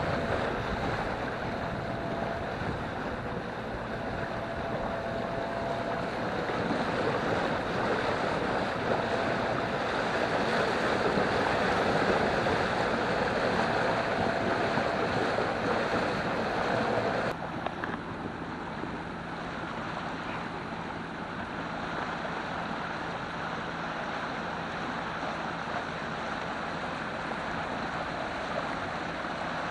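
A sailboat under way: water rushing along the hull and wind on the microphone over a steady engine hum. The sound changes abruptly about seventeen seconds in and becomes a little quieter.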